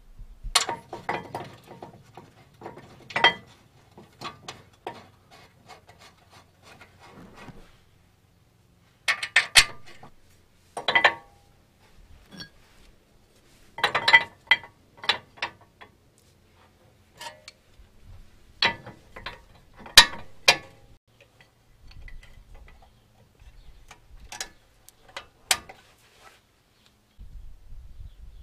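Metal clinks and knocks of brake parts and hand tools being handled while a new slotted brake disc is fitted onto the wheel-hub studs and the caliper mounted. It comes as a string of sharp, irregular clanks, some loud, with brief pauses.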